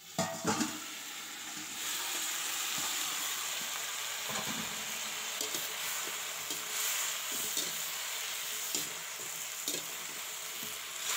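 Cauliflower and potato pieces sizzling in hot oil in a kadhai, stirred, with scattered light scrapes and clicks against the pan over a steady sizzle. A few sharp knocks come in the first second.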